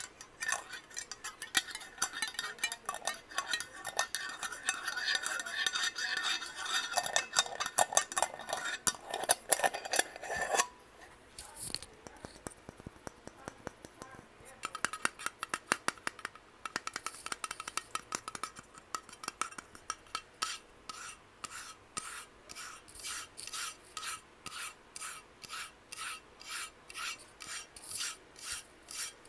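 Fingers scratching and tapping on a glass candle jar, dense and busy for about ten seconds. After a short pause comes a steady run of light taps, roughly two a second.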